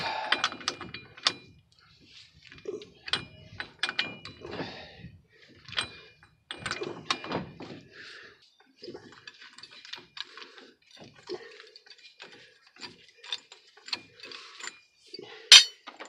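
Ratchet wrench clicking in short irregular runs, with metal scraping, as the front axle nut is worked off the spindle of a 2003 Ford F-150 4x4 hub. About fifteen seconds in there is one sharp metallic clank, the loudest sound here.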